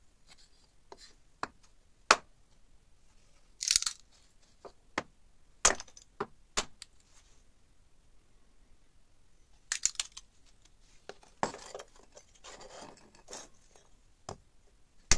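Restored axe chopping into thin wooden boards: a series of sharp, irregularly spaced chops, with crackling as the wood splits apart.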